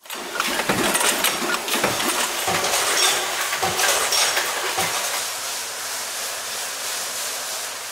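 Metal clatter of bolt-making machinery and loose steel bolts knocking together, many quick hits for about five seconds. It then gives way to a steadier, softer fizzing hiss of a bubbling liquid bath.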